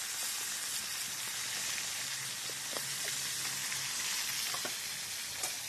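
Marinated chicken pieces deep-frying in very hot oil in a wide pan: a steady sizzle with a few faint pops.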